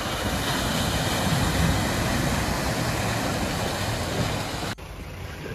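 Mahindra Bolero SUV driving through a shallow, rocky stream: engine running under a steady rush of splashing water. Near the end the splashing drops away and the quieter, steady rush of the flowing stream is left.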